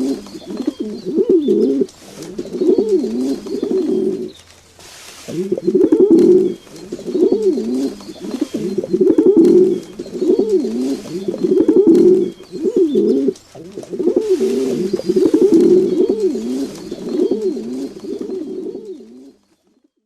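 Pigeons cooing: a steady string of low, rolling coos, one after another, with a short break about four seconds in, stopping shortly before the end.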